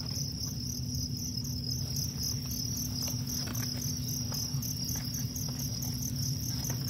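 Field crickets chirping steadily in a high, continuous chorus, over a steady low hum and a few faint knocks as coconut-shell shelters are shifted by hand.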